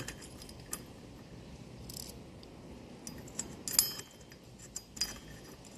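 Scattered metallic clinks and small knocks as steel parts and tools are handled and set down while a scooter's CVT is being put back together. The loudest clink comes a little before four seconds in.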